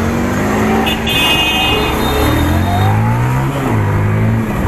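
Bajaj Pulsar 150's single-cylinder engine running and being revved, its pitch climbing from about two seconds in and falling back sharply near the end.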